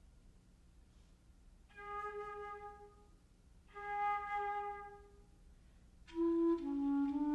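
Solo flute playing the same held note twice, each about a second long with a short gap between. About six seconds in, other wind instruments join louder, with several moving lines at once.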